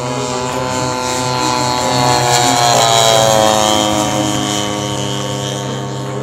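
Petrol engine of a large radio-controlled P-51 Mustang model running at speed in a low fly-by. It grows louder and its pitch drops as the plane passes about two and a half to three and a half seconds in, then fades slightly as it climbs away.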